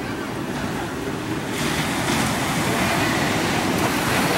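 Sea waves washing with a steady hiss, and wind buffeting the microphone; the rush of water swells louder about one and a half seconds in.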